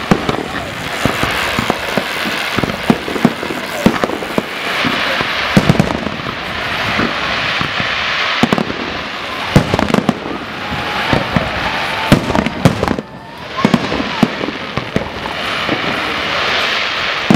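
Fireworks display: a dense crackle from crackling stars that swells and fades several times, punctuated by frequent sharp bangs of bursting aerial shells, with a brief lull about 13 seconds in.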